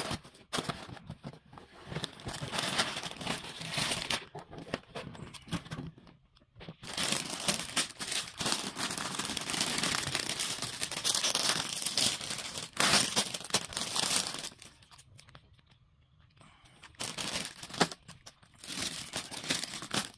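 Crinkling and tearing of a cardboard box and clear plastic parts bags as they are opened and handled. It comes in uneven stretches, with short lulls about six seconds in and again around fifteen seconds.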